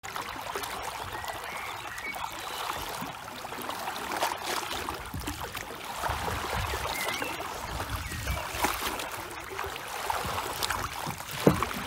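Canoe paddle strokes pulling through the water: steady splashing and gurgling as the blade dips and drips. A sharp knock near the end.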